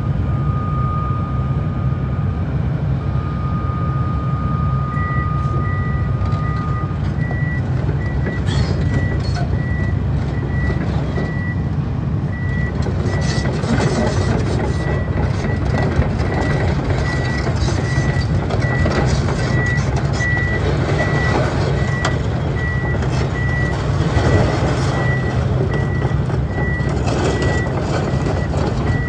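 Kobelco ED160-7 excavator's diesel engine running under load while the machine tracks across gravel, its travel alarm beeping at a regular rhythm from about five seconds in. The steel tracks add a rattling clatter from about eight seconds in. A steady high tone sounds in the first few seconds.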